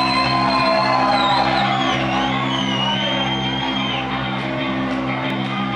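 Rock band playing live on stage: a sustained low chord held steady under a high, gliding, wavering tone that fades out about four seconds in.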